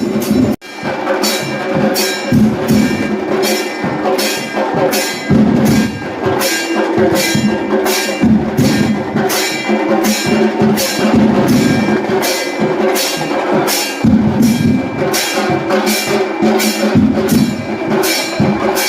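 Music with a steady percussion beat, about two sharp strikes a second, over sustained tones; a brief break about half a second in.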